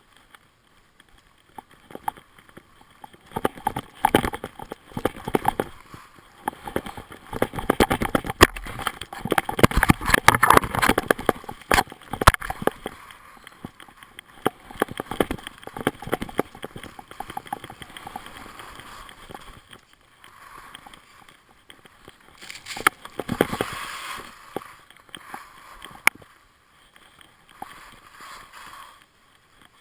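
Skis scraping and carving over packed snow at speed, heard from a camera on the skier, with many sharp clicks and knocks among the scraping. It grows loudest about ten seconds in, swells again after about twenty-three seconds, and eases off near the end.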